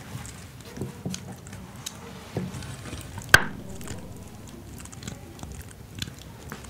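Kitchen objects being handled: light knocks and rustles, with one sharp clink about halfway through.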